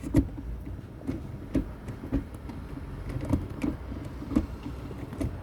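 Manual gear shifter of a Mazdaspeed 3, fitted with a short shift plate and new shifter bushings, being worked through the gears: a string of short clicks and clunks at irregular intervals as the lever snaps into each gate, over a low steady rumble.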